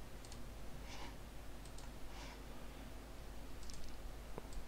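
Faint, scattered clicks of a computer mouse and keyboard, about half a dozen separate clicks, over a low steady hum.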